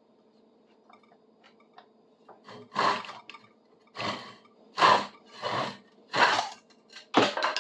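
Hand saw cutting through a round wooden handle blank along a scored line: about six separate rasping strokes, beginning about three seconds in.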